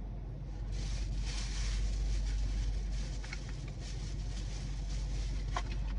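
Steady low hum of a car idling, heard from inside the cabin, with a short rustle about a second in and a few faint clicks.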